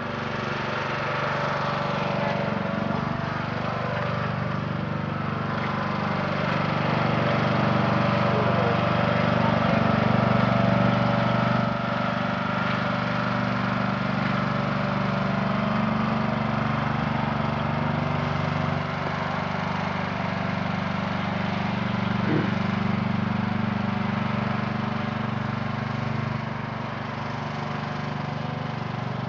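Riding lawn mower's engine running steadily as it drives along, loudest about a third of the way in and easing a little after.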